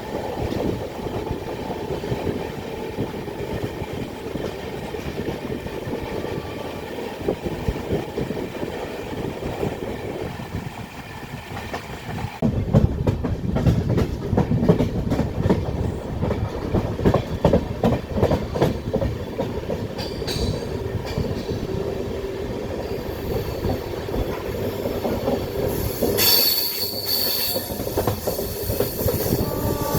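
Express train's wheels running on the rails with a steady rumble. About halfway through it gets louder, with fast clickety-clack over rail joints, and a high wheel squeal near the end.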